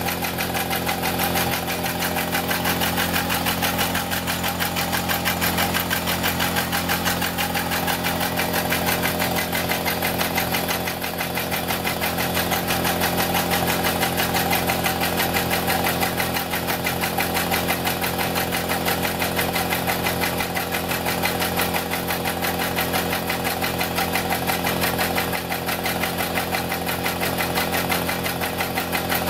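The engine of a 5-inch gauge Metre Maid miniature locomotive running steadily on the stand with its wheels turning and driving the axle pump, giving a fast, even mechanical beat over a steady hum.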